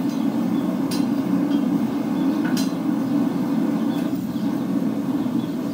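Steady low roar of a blacksmith's forge running, with two faint clicks about one and two and a half seconds in.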